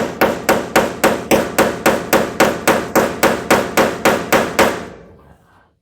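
Hammer rapidly tapping a steel screw extractor into a hole drilled in a broken bolt, about four blows a second, each ringing metallically, stopping near the end.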